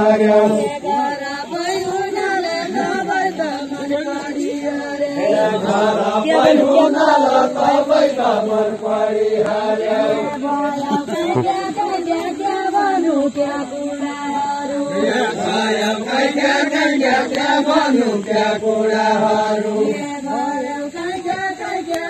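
Voices chanting a Deuda folk song in unison, in long held notes that slide up and down in a repeating melody.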